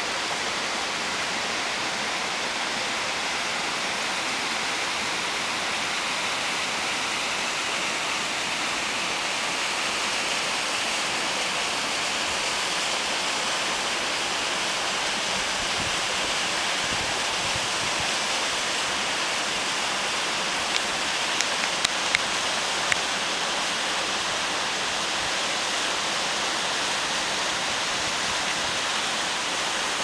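Steady rush of a small waterfall cascading down a rocky gully, an even hiss of falling water that does not change. A few short clicks come about two-thirds of the way through.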